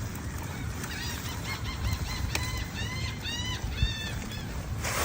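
A bird calling: a run of short squawks that rise and fall in pitch, several a second, coming faster in the second half, over steady wind and water noise.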